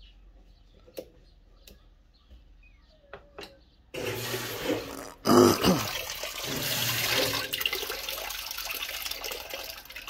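Water rushing and splashing into a GE top-load washing machine's empty tub as the fill valve opens about four seconds in, with a brief louder surge a second later. This is the fill at the start of a wash cycle; before it there are only a few faint clicks.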